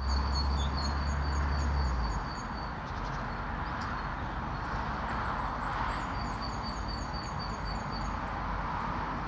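Outdoor ambience with a steady hiss-like background. Over it, two runs of short, high chirps repeat about five times a second, the first at the start and the second about six seconds in. There is a low rumble in the first two seconds.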